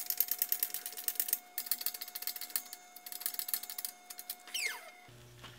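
Hydraulic bottle-jack shop press being pumped to push the center bearing into a polyurethane diff mount bushing: rapid, even metallic clicking and rattling, with a short falling squeal near the end.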